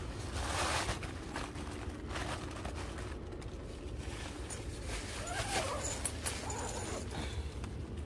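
Faint rustling and handling noises as the tent's fabric is moved and the camera is shifted about.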